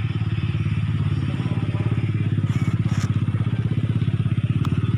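A small engine idling steadily, with a fast, even low pulse.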